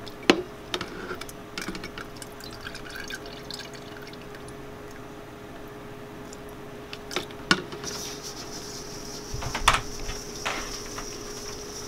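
Scattered clicks and taps of a spoon against the jar and a stainless steel bowl, with small wet drops, as syrupy maraschino cherries are scooped out and dropped into confectioners' sugar. From about two-thirds of the way through, the bowl is shaken to roll the cherries in the sugar, with a steady hiss and a few more knocks.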